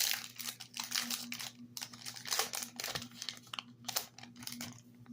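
Foil Yu-Gi-Oh booster pack wrappers crinkling in a rapid, irregular string of crackles as they are handled, over a faint steady electrical hum.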